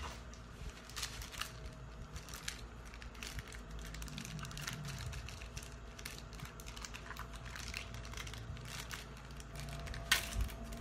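Crinkling and clicking of a small plastic bag as a heater remote control is handled and unwrapped, with a sharper click near the end. A faint steady hum runs underneath.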